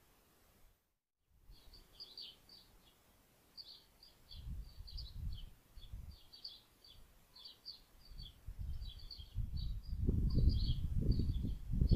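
Small birds chirping in quick, repeated short notes, starting after a brief gap about a second in. Under them runs a gusty low rumbling noise that grows loudest near the end.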